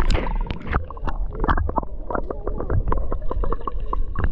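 Shallow seawater sloshing and bubbling around a camera held just under the surface, with many quick pops and clicks over a low rumble.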